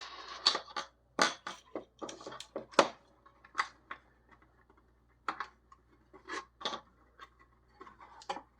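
Irregular sharp plastic clicks and taps from handling a chronograph and plugging in its connector: about a dozen, uneven in spacing, the loudest about a second in and near three seconds.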